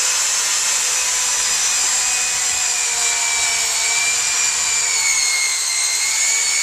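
HSK handheld plastic extruder running, its drill-type drive motor turning the screw as HDPE welding rod feeds in; a steady high-pitched power-tool whine.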